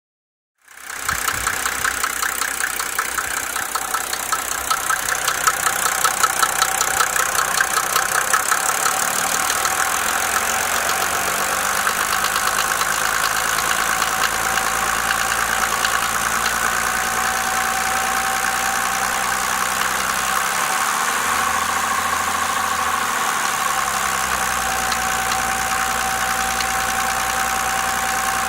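Mercedes-Benz OM603 inline-six diesel engine running steadily with a rhythmic knock, a noise whose cause the owner is trying to work out.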